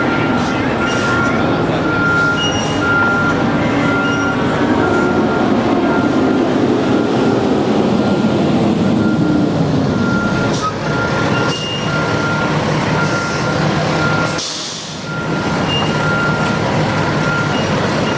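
A heavy truck's reversing alarm beeping at an even pace over a steady engine rumble, with a short air-brake hiss about fourteen seconds in.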